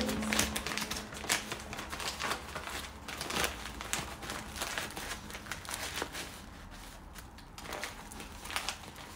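Stiff sego gele headscarf fabric rustling and crinkling in irregular crackles as hands fold and adjust it on the head. The crackles are busier in the first two-thirds and sparser near the end.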